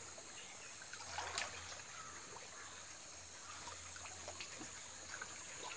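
Shallow stream water trickling and flowing over rocks, faint and steady, with a brief louder rush of noise about a second in.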